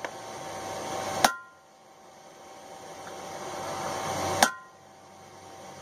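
Hammer blows on a chisel cutting a groove into a steel railroad spike, each strike giving a short metallic ring. Two strikes land about three seconds apart, with a lighter tap at the very start.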